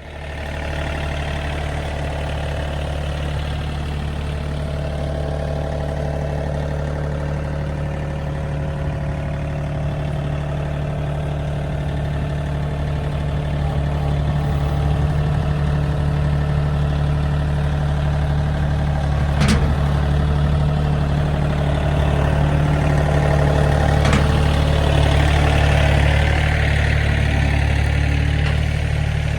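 Engine of a farm work machine running steadily, growing a little louder about halfway through, with a few short sharp clanks.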